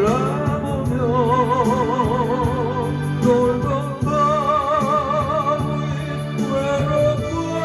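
Singing with a wide, wavering vibrato on long held notes, over electronic keyboard accompaniment with a steady low bass.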